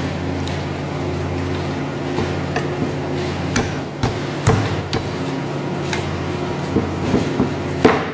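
Butcher's cleaver chopping through lamb ribs on a cutting board: irregular sharp knocks, the strongest about halfway through and a quick run of them near the end. A steady low machine hum runs under them.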